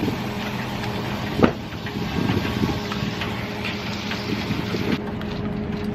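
Motorized pressure washer hose reel winding the hose in by remote: a steady mechanical hum with a sharp knock about a second and a half in.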